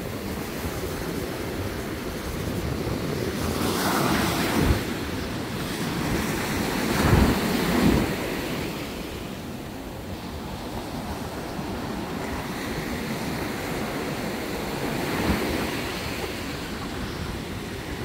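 Ocean surf breaking and foaming up the sand in a steady wash that swells louder a few times, most strongly about seven to eight seconds in, with gusts of wind buffeting the microphone in short low rumbles.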